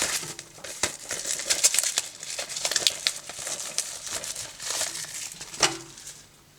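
Plastic shrink wrap being peeled and torn off a steelbook disc case, crinkling irregularly, dying away near the end.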